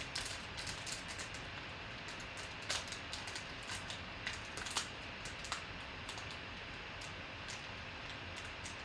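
Foil wrapper of a trading-card pack crinkling and tearing as it is worked open by hand: scattered, irregular crackles and clicks, a few sharper ones around three and five seconds in.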